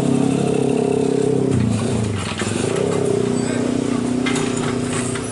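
Excavator's diesel engine running under load, its pitch dropping about one and a half seconds in and then holding steady at a lower speed.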